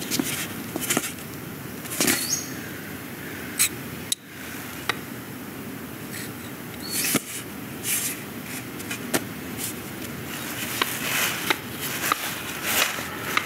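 Film sound-effects track of small objects being handled: scattered sharp clicks, taps and brief scrapes over a steady low noise bed, with a short high tone that steps up in pitch about two seconds in.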